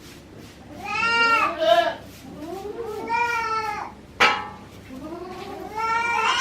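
Newborn goat kid bleating three times in high, meow-like calls, each about a second long and rising then falling in pitch. A sharp click comes between the second and third call.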